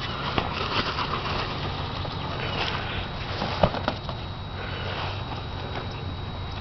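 A small dog sniffing as it chases and noses a basketball on grass, with a few sharp knocks, the loudest about three and a half seconds in, over a steady low hum.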